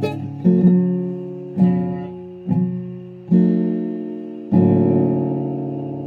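Acoustic guitar strumming about six slow, separate chords, the last one about four and a half seconds in left to ring out and fade.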